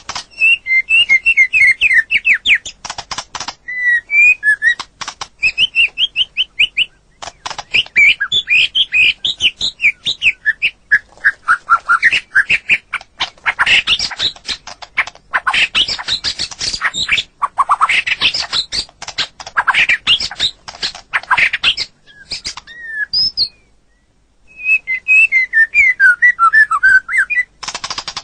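White-rumped shama (murai batu) singing: varied phrases of clear whistled notes and fast repeated notes, broken by stretches of harsh rattling chatter, with a short pause near the end.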